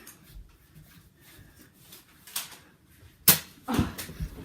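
Spring-powered Nerf blaster firing a foam dart: one sharp, loud snap about three seconds in, followed by a few softer knocks.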